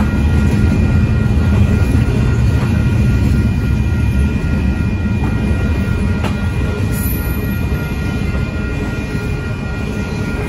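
Double-stack intermodal freight cars rolling past at speed: a steady low rumble of wheels on rail that eases off slightly toward the end, with thin steady high tones over it.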